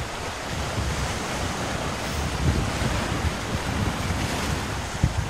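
Wind buffeting a phone's microphone: a steady rushing noise with gusty low rumble, and a short knock about five seconds in.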